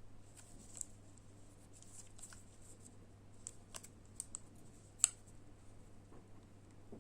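Hands handling the plastic USB-C charger and its packaging: scattered light clicks and taps, the sharpest about five seconds in.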